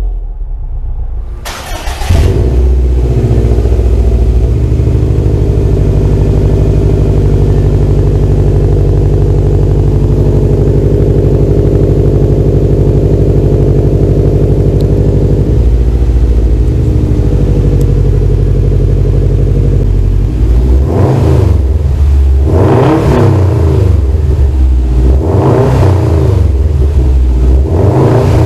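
A 2017 Subaru WRX STI's turbocharged 2.5-litre flat-four starts about two seconds in and idles steadily through its Greddy SP catback exhaust. In the last several seconds it is revved up and let fall back four times.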